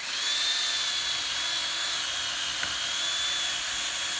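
Electric power saw switching on and running at full speed with a steady high-pitched motor whine, cutting into a tree.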